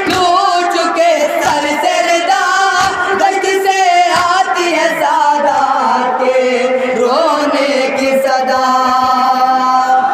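A group of men chanting a Shia noha (mourning lament) together in long, drawn-out notes, with scattered sharp slaps of hands beating on chests (matam).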